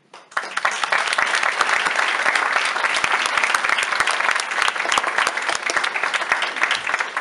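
Audience applauding: many hands clapping that break out all at once and keep up evenly, easing a little near the end.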